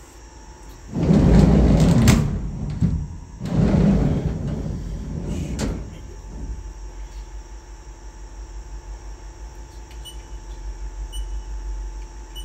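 The Haas VF0 vertical machining center's sliding enclosure door is slid twice, two loud slides each a second or two long, starting about a second and about three and a half seconds in. Then the machine's steady low hum, with a few faint ticks near the end.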